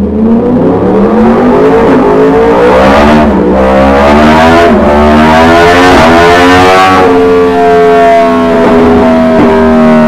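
Yamaha MT-10's 998 cc crossplane inline-four engine running at full throttle on a dyno through a Dominator aftermarket slip-on silencer. The pitch climbs through the gears, with brief dips at upshifts about three and five seconds in. From about seven seconds it levels off and is held steady at high revs in top gear.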